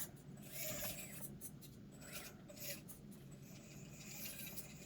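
Faint scraping, rubbing and clicking of a 1/24-scale RC crawler's tires and chassis working over rocks, with a faint low steady hum under it.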